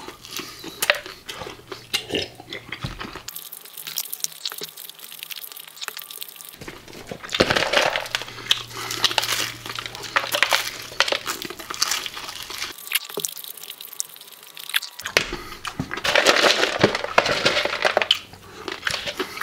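Close-up eating sounds of crispy fried chicken being bitten, torn apart and chewed: irregular crackling crunches and chewing. The segments are spliced together, so the sound changes abruptly several times.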